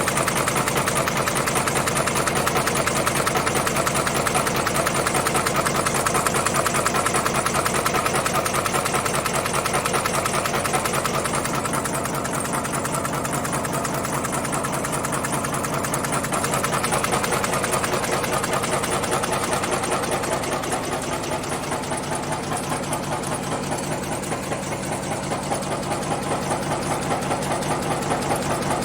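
Cold-forging bolt forming machine running, a steady mechanical sound of rapid, evenly repeating strokes.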